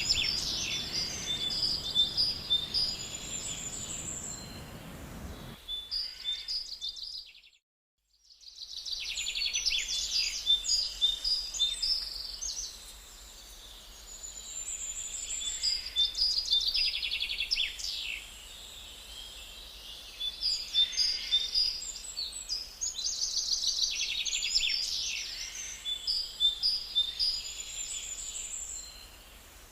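Songbird singing, the same bright phrase of quick chirps and trills coming again every six to eight seconds. The sound cuts out completely for about a second roughly seven seconds in, then the song resumes.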